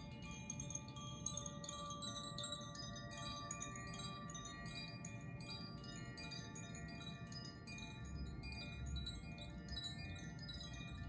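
Hand-held tuned wind chimes of the Koshi kind being gently turned so the clapper strikes the tuned rods over and over: dense, irregular tinkling over many overlapping, sustained ringing tones.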